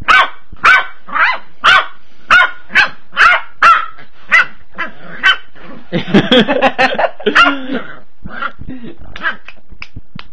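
Small white puppy barking in short, sharp, high yaps, about two a second, with a denser, scrappier flurry about six seconds in and smaller, fainter yips near the end.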